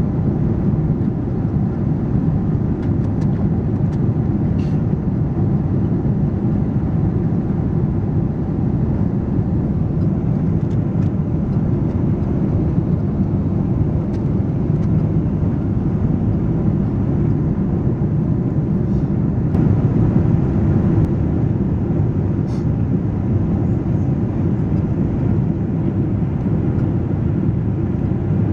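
Steady cabin noise inside a Boeing 777-200ER on approach with flaps extended: the GE90 engines and the airflow over the airframe make an even low rumble, with a few faint ticks.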